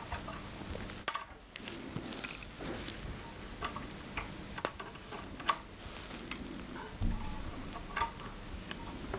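Scattered small clicks and taps of hand tools snipping and handling the wire leads of replacement oscilloscope scale-illumination bulbs, with a sharp click about a second in and a heavier knock about seven seconds in.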